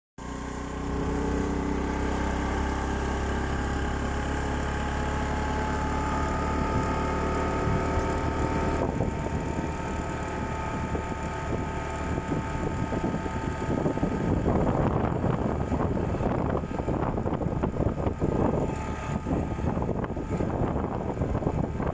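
Motor vehicle engine running steadily while riding along a wet road, with tyre and road noise. From about halfway through, wind buffets the microphone and covers the engine note.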